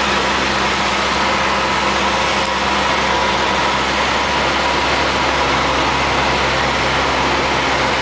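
Engine and propeller of a single-engine Cessna running steadily in flight, heard inside the cabin as a constant drone mixed with rushing air.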